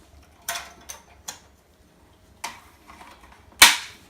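Four sharp clicks and knocks of small blind-fitting clips being handled and clipped on, the loudest about three and a half seconds in.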